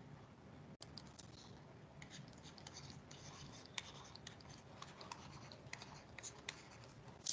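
Faint light taps and scratches of a stylus writing on a tablet screen, in short irregular strokes.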